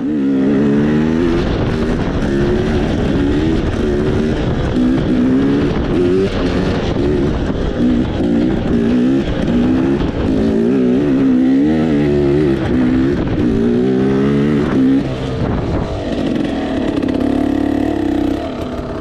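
Dirt bike engine revving up and down as it is ridden, its pitch rising and falling in quick swells over and over. It settles to a steadier note in the last few seconds.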